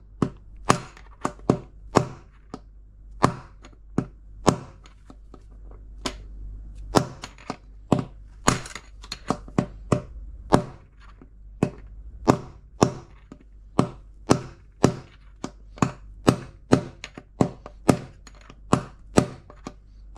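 Hammer blows on the inner race of an LG washing machine's worn drum bearing, driving the old bearing out of its seat. A steady series of sharp metallic knocks, about two a second.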